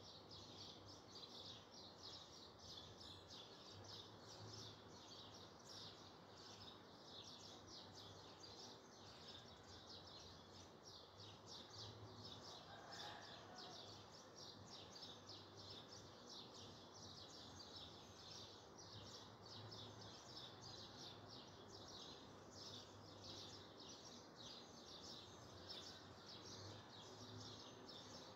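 Near silence: faint, continuous high-pitched chirping of birds, rapid and unbroken, over a low steady hum.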